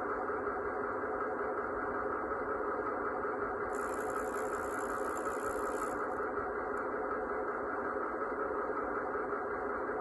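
Piko garden-railway model of a DR class 110 diesel locomotive, its sound module playing a steady diesel-engine running sound through a small speaker. About four seconds in, a high hiss joins it for roughly two seconds and then cuts off.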